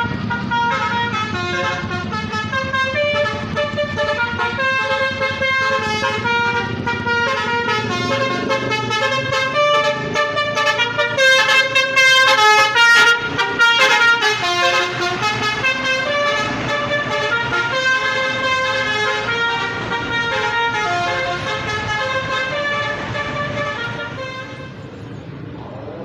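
Tour bus's basuri (telolet) horn playing a melody, one held note after another, loudest around the middle and easing off near the end.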